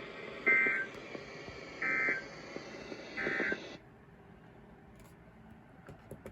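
Three short bursts of EAS/SAME end-of-message data tones, the digital 'NNNN' code that closes a weather radio alert, over a steady broadcast hiss. The hiss cuts off suddenly a moment after the third burst, as the alert broadcast ends.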